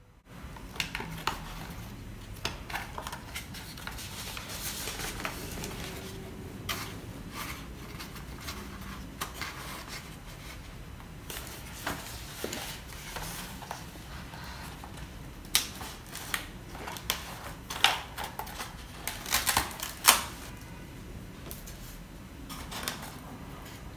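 Handling noises: scattered light plastic clicks and taps as an RC receiver and its servo leads are handled and fitted into a foam plane fuselage, with a quicker run of sharper clicks in the later part.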